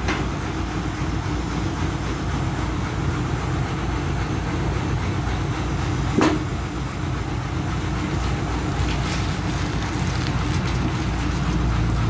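Steady running noise of an electric band sawmill's motor and blade, with one sharp knock about six seconds in.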